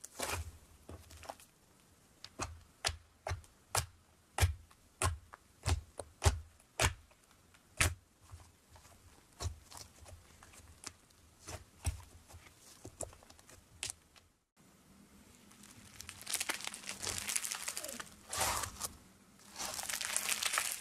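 Slime squeezed and kneaded by hand, giving sharp pops of trapped air at irregular intervals, about one or two a second. After a cut about two-thirds of the way through, a fluffy, fibrous slime is stretched and pulled apart with a denser, continuous crackling and tearing sound.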